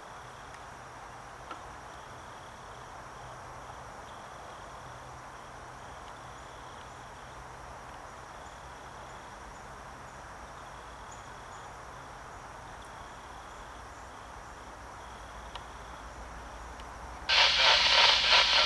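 Insects chirring steadily in the trees, with a faint low drone underneath; near the end a loud diesel locomotive air horn blast starts abruptly as the train approaches.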